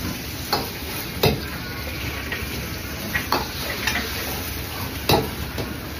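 Beaten egg sizzling in a hot wok, with a steel ladle stirring it and clanking sharply against the wok about five times, loudest about a second in and again near the end.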